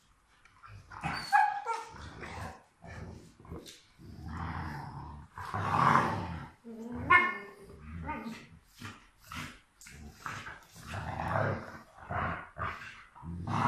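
Two Rottweilers play-fighting, growling in repeated bursts with an occasional short bark, starting about a second in.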